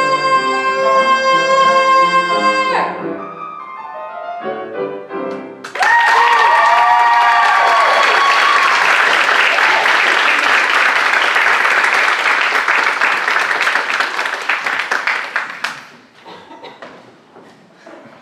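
A singer holds a long final note over grand piano, then a few piano notes close the song. About six seconds in, loud audience applause with cheers breaks out and goes on for about ten seconds before thinning to scattered claps near the end.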